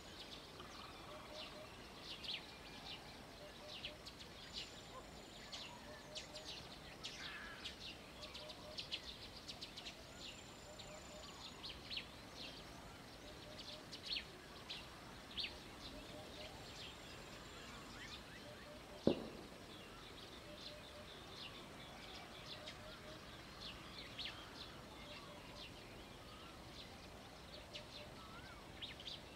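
Faint chirping and short calls of small birds, scattered throughout over a low background hiss, with a few brief high whistles. A single sharp click comes about two-thirds of the way through.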